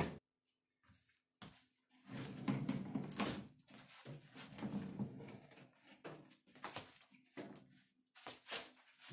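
Heavy wood stove being shoved and jostled on a wheeled dolly over a plywood floor: irregular scraping, rolling and knocking as the load shifts. It starts about a second in.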